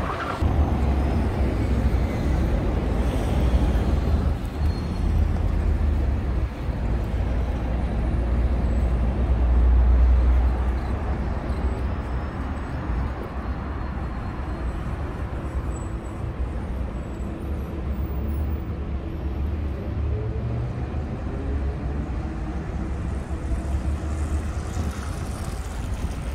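Street traffic noise: vehicles passing with a low rumble that swells to its loudest about ten seconds in, then eases.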